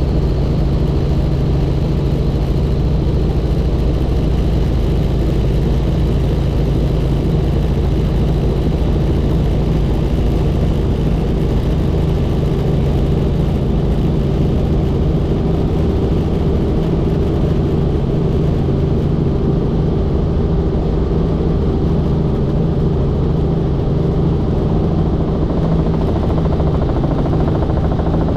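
Helicopter in steady flight: a constant engine and rotor drone, unchanging in pitch and loudness.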